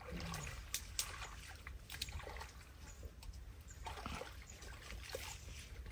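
Faint splashing and trickling of water, with scattered small clicks and splashes.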